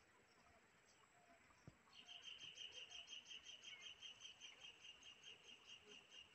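Faint insect chirping, starting about two seconds in: a high, fast, even run of about five chirps a second.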